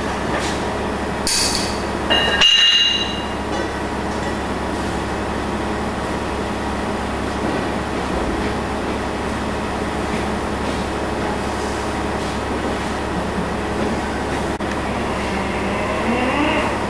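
A steady mechanical drone fills the space throughout. About two seconds in there is one loud metal-on-metal clank that rings briefly, and near the end a whine rises in pitch.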